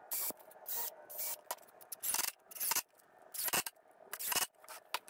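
A string of short, irregular scrapes and rubs from a board and tools being handled on a wooden workbench.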